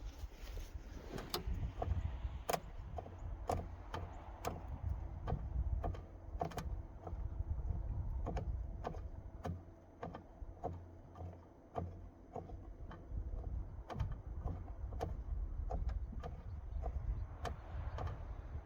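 A series of sharp clicks and knocks, roughly one a second at uneven spacing, over a steady low rumble.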